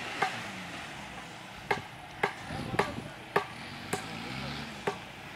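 Off-road jeep engine running faintly in the background, overlaid by about seven sharp clicks at uneven intervals of roughly half a second.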